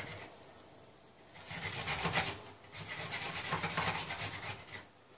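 Raw potato being grated on a handheld flat grater: quick rasping strokes in two runs, starting about a second and a half in, with a brief pause near the middle.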